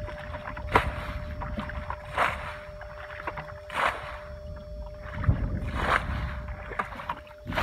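Plastic bucket scooping muddy water and flinging it out, a splash about every second and a half, four or five in all.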